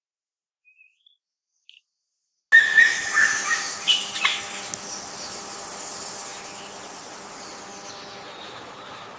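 Silence broken by a few faint chirps, then sound cuts in suddenly about two and a half seconds in: bird chirping over a steady hiss and a faint hum. The chirps thin out after a couple of seconds while the hiss carries on.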